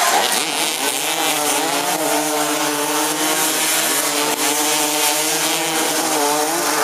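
Several small engines running together, their pitch rising and falling as they rev.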